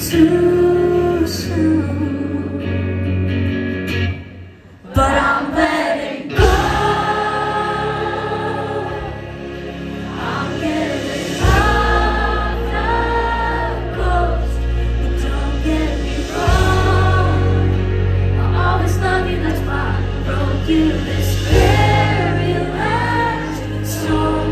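Live band music with sung vocals, heard from within the audience. There is a brief dip about four seconds in, and a heavy bass comes in about halfway through.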